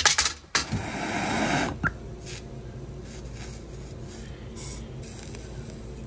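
Gas torch hissing while heating the end of copper tubing, louder for about a second at the start, then steadier; a single sharp click just before two seconds in.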